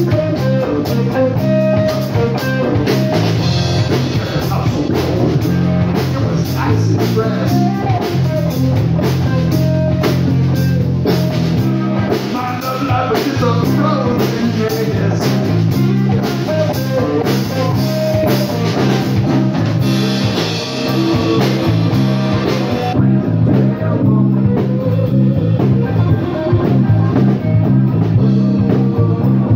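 Live rock band playing: electric guitar over a drum kit, with a bass line stepping between low notes.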